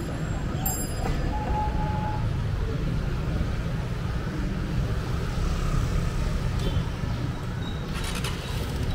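Street traffic noise: a steady low rumble of passing motor vehicles.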